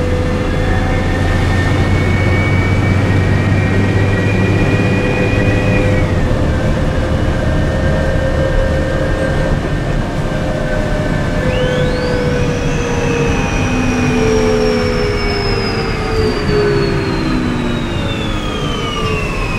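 Cabin sound of a New Flyer C40LF bus under way, its Cummins C Gas Plus engine modified to run partly on hydrogen. The drivetrain whine climbs slowly and steps down in pitch about six seconds in, as at a gear change. About twelve seconds in a high whine sweeps up and then falls steadily as the bus slows.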